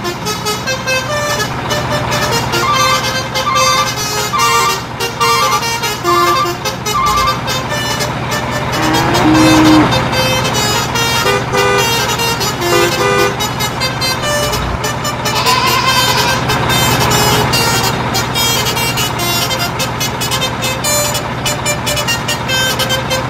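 Upbeat background music with a melody of short, bouncing notes, layered over a dense, busy mix of other sounds.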